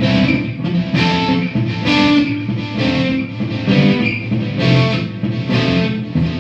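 Electric guitar played through a Marshall combo amp on a crunch overdrive tone. Distorted chords and notes are struck about twice a second and left to ring.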